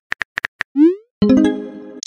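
Rapid on-screen keyboard tap clicks, then a short rising swoop and a synthesized chime that fades out: a texting app's message-sent sound.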